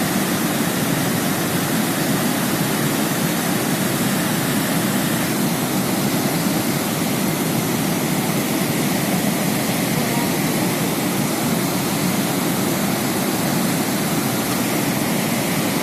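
Continuous rushing of a muddy flash-flood torrent carrying rocks and debris down a mountain channel, a steady even roar of water with no breaks.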